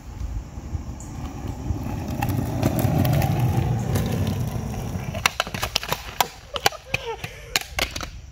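Small wheels of free skates rolling on an asphalt path: a rumble that swells as the skater passes and then fades. Then comes a quick run of sharp clacks and knocks.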